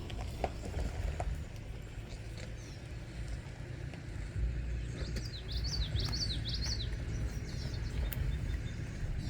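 A bird chirps a quick run of high notes from about five to seven seconds in, over a low continuous rumble that drops away at the very end.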